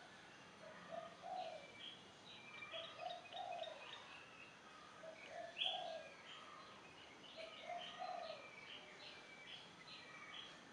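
A dove cooing: a short low phrase of two or three notes, repeated four times about every two and a half seconds. Smaller birds chirp in quick, broken higher notes alongside it.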